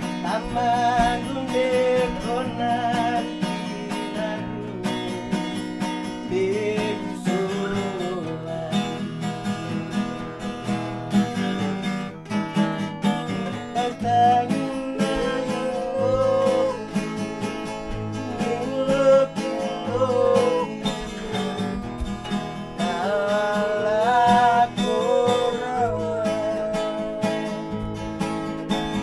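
Acoustic guitars strummed in a steady rhythm, with a voice singing a melody over them.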